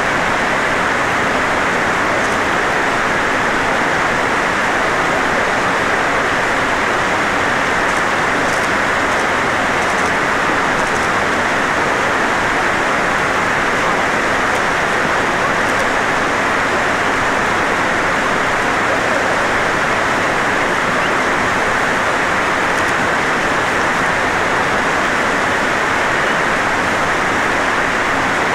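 Steady rush of flowing water, an even hiss with no breaks or changes in level.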